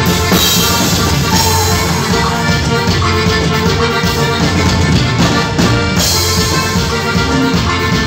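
Live band music played loud, with a drum kit keeping a steady beat under held melody lines.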